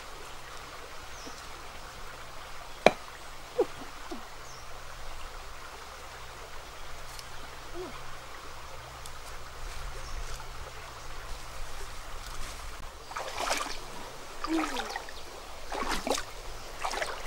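Shallow stream running with a steady trickle, a sharp knock about three seconds in, and splashing in shallow water near the end as someone wades through it.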